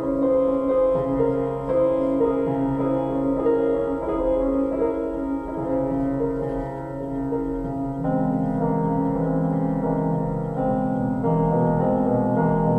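Instrumental music, mostly piano, playing as silent-film accompaniment; deeper notes join in about eight seconds in.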